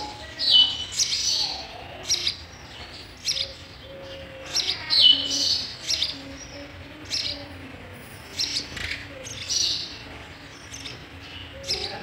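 House sparrows chirping at the nest while an adult feeds the chicks: short high chirps in clusters every second or so, loudest about five seconds in.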